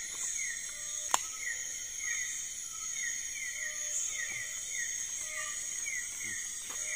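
Night insect chorus: a steady high-pitched drone with a short falling chirp repeating about twice a second. One sharp click about a second in.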